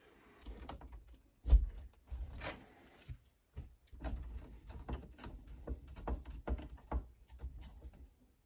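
Screwdriver tightening the wire terminal screws on circuit breakers in a breaker panel: scattered small clicks and scrapes of metal on plastic, with one sharp knock about a second and a half in.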